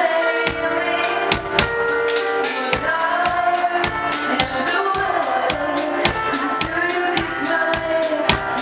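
Live pop band playing a steady pulse of repeated chords with drums.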